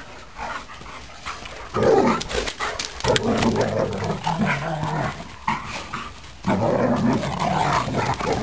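Dogs growling while play-fighting: low, drawn-out growls in three bouts, about two seconds in, three seconds in and from six and a half seconds on.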